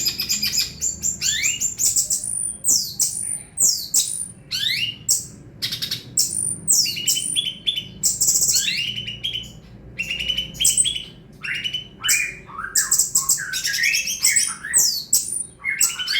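Cucak cungkok songbird singing a long, fast, varied song of high chirps, whistled up- and down-sweeping notes and harsh squawky chatter, in rapid phrases with brief pauses. This is the kind of busy 'gacor' song used as a tutor recording to teach other caged birds.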